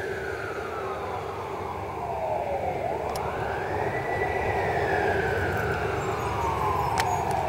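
Fire apparatus siren wailing as the truck pulls away, its pitch climbing quickly and falling slowly, about four seconds per cycle, over a low rumble of traffic.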